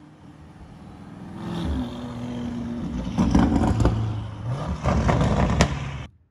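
Lamborghini Urus's twin-turbo V8 accelerating past, its exhaust note growing louder and rising in pitch, with a few sharp cracks from the exhaust; the sound cuts off suddenly near the end.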